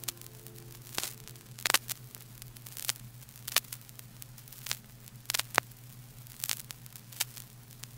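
Vinyl record surface noise in the quiet groove between two tracks: scattered, irregular clicks and pops over a steady low hum.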